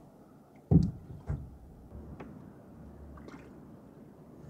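Wooden canoe paddle strokes: two sharp splashes about a second in and half a second apart as the blade goes into the water, then quieter drips and a small knock.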